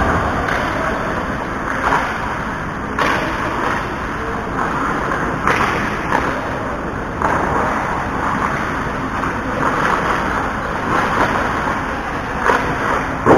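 Ice hockey game in play: a steady rush of skates scraping the ice, broken by several sharp clacks and thuds of sticks, puck and boards.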